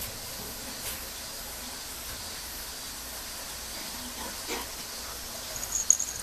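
Steady faint hiss, then near the end a plush toy's squeaker squeezed in a quick run of short, high-pitched squeaks.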